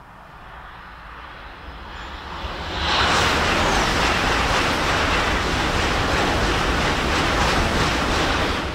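Shinkansen bullet train passing at high speed. A rushing noise swells over about three seconds, stays loud and even for about five seconds as the train goes by, then falls away near the end.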